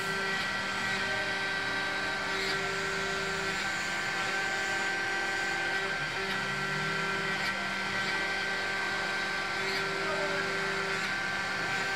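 CNC vertical milling machine running, its spindle driving a small end mill through a metal block clamped in a vise: a steady high whine, with lower tones that come and go every second or two.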